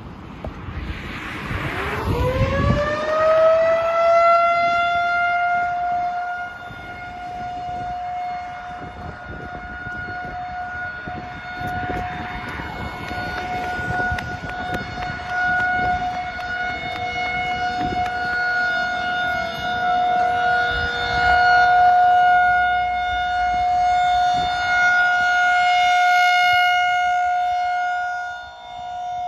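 Outdoor tornado warning siren winding up, its pitch climbing for about three seconds, then holding a steady wail that swells and fades in loudness. A second, lower steady tone joins about halfway through. It is sounding for a tornado drill.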